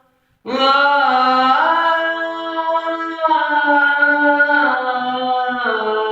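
A singer's voice holding long, wordless notes of a ghazal, with slow bends in pitch; it comes in about half a second in after a brief silence.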